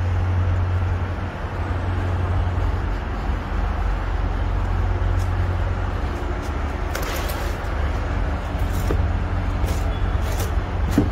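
Diesel semi tractor engine idling with a steady low hum, probably an International MaxxForce 13. A few light clicks sound in the second half.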